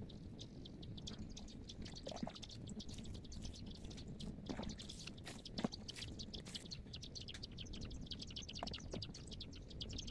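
Small birds chirping rapidly and continuously, with a few light taps in between, one sharper than the rest about halfway.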